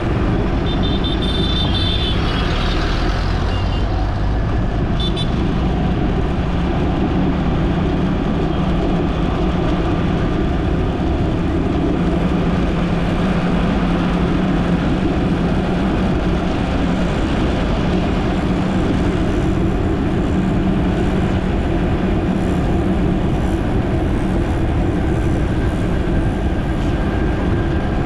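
Steady road and traffic noise while driving through city traffic: a low engine and tyre rumble, with a few short high beeps about a second in.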